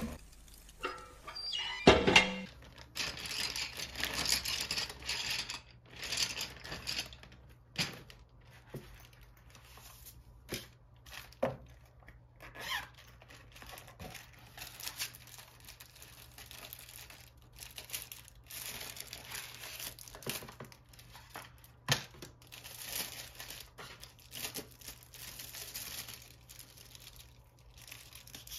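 Thin shrink plastic sheets rustling and crinkling as they are handled, in irregular bursts with small taps and clicks. A single thump about two seconds in is the loudest sound.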